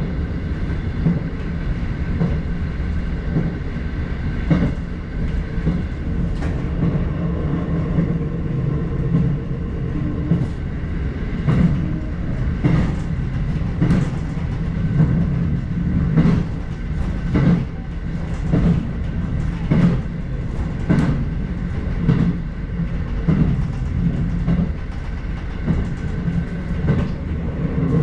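Electric multiple-unit train running along the line, heard from inside the front car. There is a steady low rumble, and the wheels clack over rail joints in ones and quick pairs, more often from about eleven seconds in.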